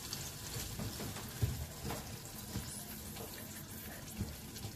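A spatula stirring thick canned-tomato sauce in a metal saucepan: wet squelching with a few soft knocks of the spatula against the pan.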